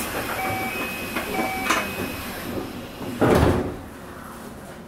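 Keio 9000 series passenger-door chime beeping twice, about a second apart, then the sliding doors thudding shut: the doors closing before the train departs.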